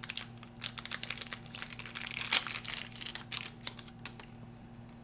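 Clear plastic packaging crinkling and rustling in the hands as a spacer is taken out of it, with one sharp click about two and a half seconds in. The crinkling dies away after about four seconds.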